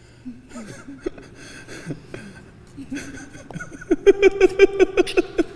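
People chuckling, breaking into a quick run of laughter about four seconds in.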